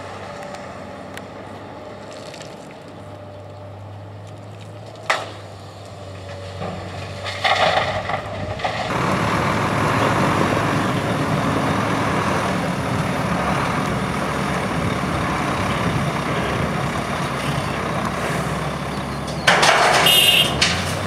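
Komatsu PC240-8 excavator's diesel engine running low and steady, with a single sharp knock about five seconds in. About eight seconds in it rises into a loud, steady working run. Near the end, louder harsh bursts with a high squeal break in.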